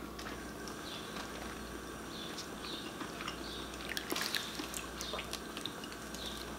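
Faint eating sounds of a seafood boil eaten by hand: scattered soft clicks and wet smacks as crab and lobster shells are picked apart, meat is dipped in sauce and chewed, over a steady low hum.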